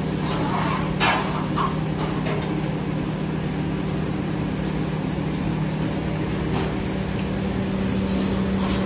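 Steady hum and hiss of commercial kitchen equipment at a stove and grill, with a brief clatter of a cooking utensil about a second in.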